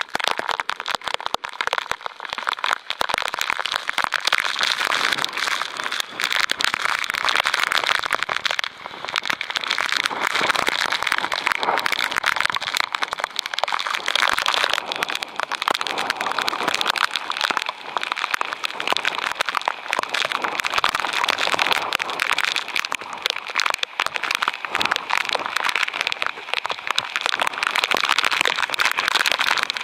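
Heavy thunderstorm downpour: a steady, dense patter of rain made up of many sharp, crackling drop impacts.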